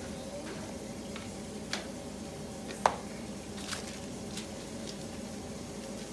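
A few light clicks and knocks of plastic containers, lids and a plate being handled on a kitchen counter, the sharpest about three seconds in, over a steady low hum.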